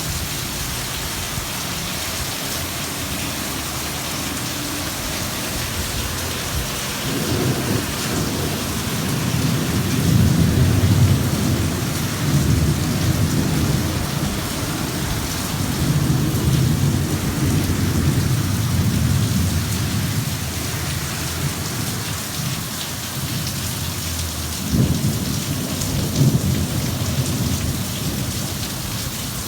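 Steady rain falling throughout, with a long rolling rumble of thunder building about a quarter of the way in and lasting over ten seconds, then a second, shorter rumble near the end.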